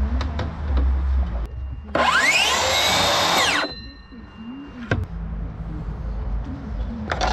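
Circular saw motor spinning up with a rising whine, running steadily for about a second and a half, then switched off, a faint tone lingering as it winds down. A few sharp knocks before and after.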